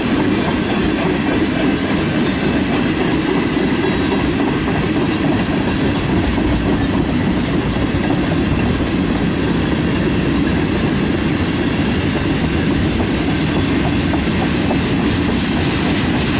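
Freight train cars rolling past: the steady rumble of steel wheels on rail, with clacking as the wheels cross rail joints. The train is a string of black tank cars followed by a boxcar.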